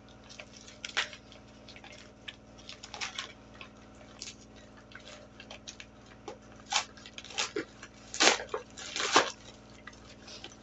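Plastic parcel packaging being opened and handled: scattered small crackles and crinkles, with louder rustles about seven to nine seconds in.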